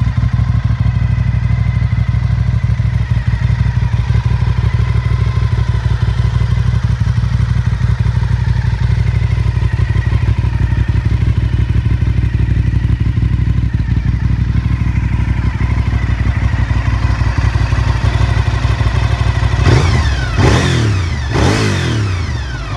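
Honda RC51's 999 cc V-twin engine idling steadily through a Yoshimura slip-on exhaust, then blipped twice near the end, the revs shooting up and dropping back to idle each time.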